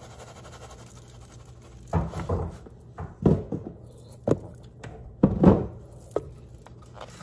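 A handful of short knocks and rustles from a plastic garlic-salt shaker being shaken over a metal pan of raw chicken, starting about two seconds in and spaced irregularly over the next few seconds.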